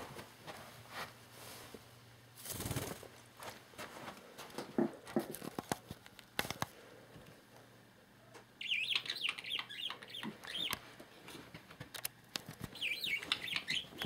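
Pet budgie's wings flapping briefly about two and a half seconds in, then the budgie chattering in quick warbling chirps in two spells in the second half, with light taps and clicks between.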